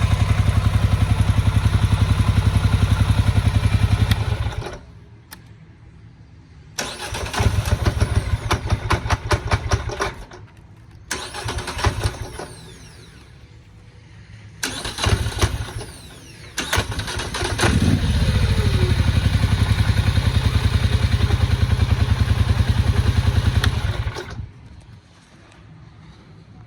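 Engine running steadily, then stopping about four seconds in; after a pause it is cranked over in several short attempts, catches briefly more than once, then runs steadily for several seconds before stopping again near the end. It is a hard-starting engine that the owner says will not start easily without throttle to assist.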